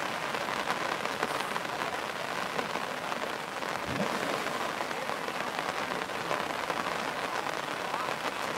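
Steady rain falling on shallow water, an even hiss of drops.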